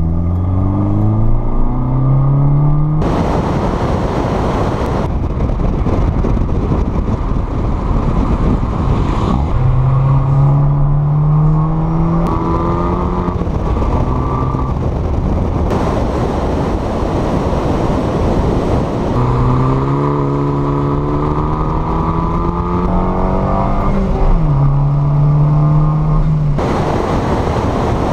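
Fiat 500 Turbo's turbocharged four-cylinder engine accelerating hard through the gears. Its pitch climbs steadily, drops at each upshift and climbs again. This alternates with stretches of loud wind and road rush on the outside-mounted camera.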